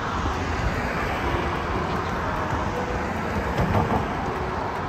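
Steady low wind rumble on the microphone of a moving rider.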